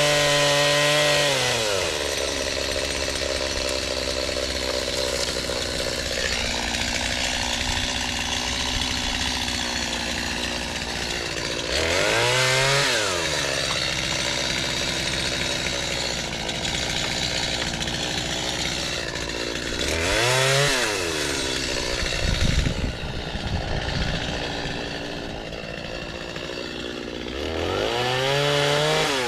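Chainsaw engine revving up in four bursts and dropping back to a lower steady running speed in between, with rough irregular noise in the middle, typical of the saw cutting through crepe myrtle branches.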